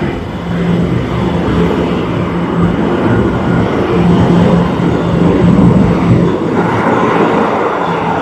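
Tokyo Metro Ginza Line 1000 series subway train departing an underground station, running past the platform as it accelerates, with a steady low hum under the wheel and motor noise. About six and a half seconds in, the low rumble falls away as the last car clears the platform.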